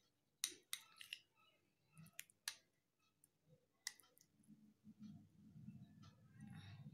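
Faint clicks of a metal spoon against a small glass bowl while stirring a crumbly face-pack paste of orange peel powder, gram flour and raw milk: a handful of scattered clicks in the first half, then faint low handling noise toward the end.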